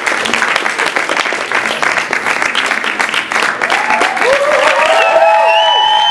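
Audience applauding the cast's bow. About four seconds in, several rising and falling whooping cheers join in over the clapping.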